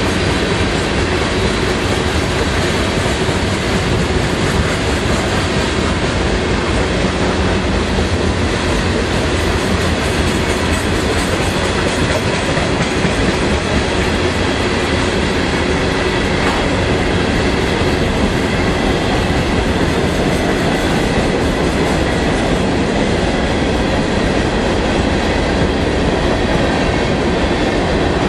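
Freight train passing close by: tank cars and then covered hopper cars rolling past, a steady, loud rumble and rattle of wheels on rail.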